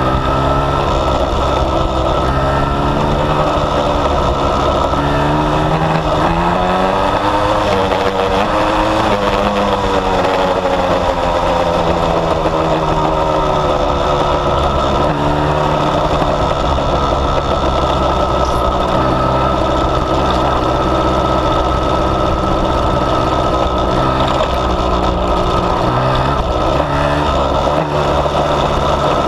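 1980 Suzuki TF185's two-stroke single-cylinder engine running while riding, its pitch rising and falling repeatedly as the throttle is opened and eased off over the dirt track.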